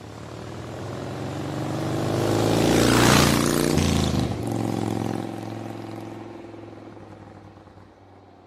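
Logo sting sound effect: a swelling whoosh that peaks about three seconds in, over a low steady hum, then fades away.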